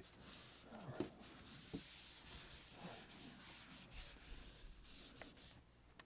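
Faint rubbing and scuffing of a napkin wiping a tabletop, with a couple of soft knocks about one and nearly two seconds in.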